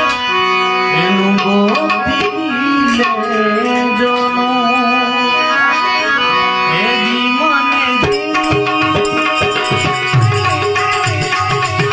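Harmonium and tabla playing devotional bhajan music: a sustained reedy harmonium melody over tabla strokes, with the tabla's deep bass strokes coming in heavier near the end.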